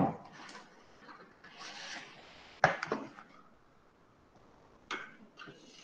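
A few short, sharp clicks or knocks and a brief rustle about two seconds in, heard through a video-call microphone.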